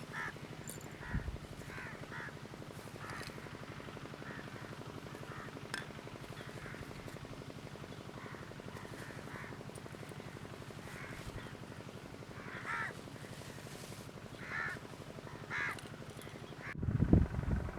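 Crows cawing now and then, many short separate calls, over a steady low hum. About a second before the end the sound changes abruptly to loud low rumbling, like wind on the microphone.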